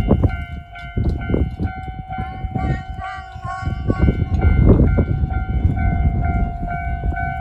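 Japanese level-crossing warning bell ringing steadily, half buried under heavy wind buffeting on the microphone.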